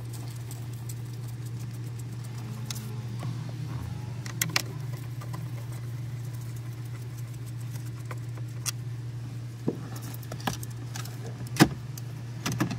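Scattered clicks and knocks of a screwdriver, plastic trim and wiring connectors being worked while the factory head unit is removed from a MINI Cooper dashboard, with the sharpest knock near the end. A steady low hum lies under it.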